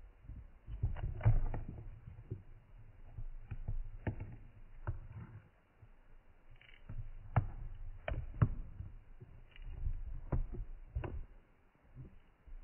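A dozen or so irregular light knocks and taps against a clear plastic enclosure, over low rumbling handling noise from the camera.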